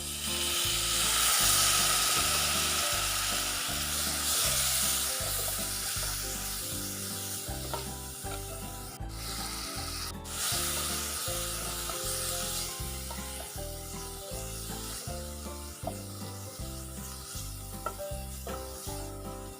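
A splash of water hitting hot sunflower oil and fried spice powders in a pan, sizzling loudly at first and then settling to a softer, steady sizzle; the water keeps the powders from burning. Background music with a steady beat plays underneath.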